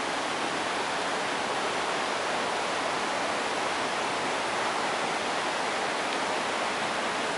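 Steady rush of flowing water from the hot springs' waterfalls and streams, an even hiss with no breaks.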